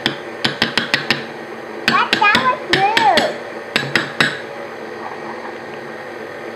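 A metal spoon tapping and clinking against a small glass jar while scooping out thick cranberry paste: quick clusters of sharp clicks, several a second, that stop about four seconds in.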